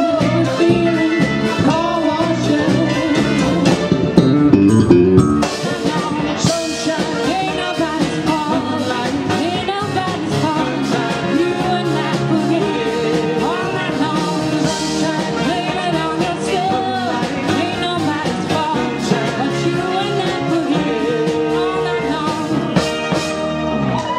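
Live band playing with vocals over drum kit, keyboards and electric bass. The low end thins and the music drops back a little about five seconds in.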